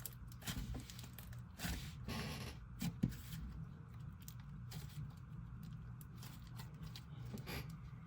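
Hands squishing and stretching a dough slime: irregular soft sticky clicks and small pops, one sharper click about three seconds in, over a low steady hum.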